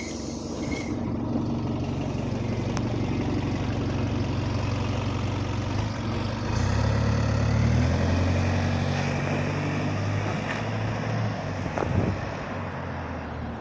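Single-deck bus SOE36's diesel engine idling at the stop, then pulling away from about halfway through, louder, with the engine note stepping up and down as it goes through the gears. A short sharp thump near the end.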